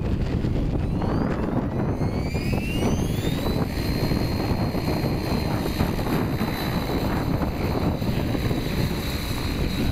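Whiplash 90E electric RC helicopter spooling up. A high whine from the motor and drive rises in pitch for about two and a half seconds, then holds steady at head speed as the model lifts into a low hover, over wind rumble on the microphone.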